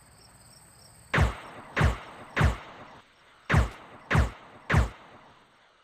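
Suppressed Uzi submachine gun sound effect: two sets of three muffled shots about half a second apart, each a short sound that falls quickly in pitch. It starts a little over a second in.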